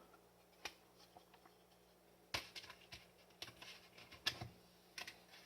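Faint scattered clicks and rustles of a plastic Blu-ray case being handled and opened to get at the discs, with a few sharper clicks in the second half.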